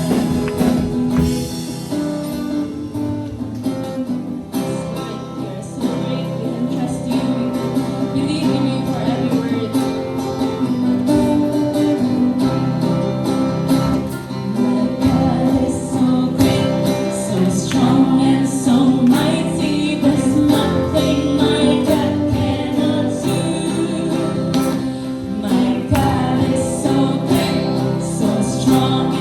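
Gospel worship music played by a band, with guitar and singing voices.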